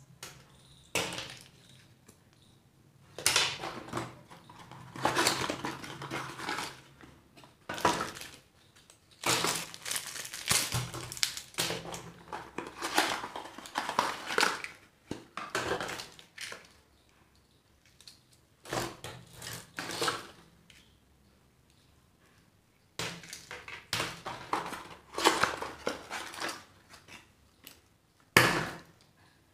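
Small cardboard mystery boxes being opened and handled along with crinkly plastic candy wrappers and toy packets: irregular bursts of rustling and crackling with short pauses, and one louder, sharp crackle near the end.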